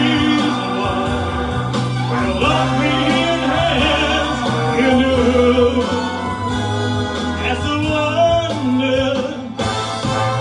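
Music with singing: a backing track with sustained choir-like voices over a steady bass line, dipping briefly and changing near the end.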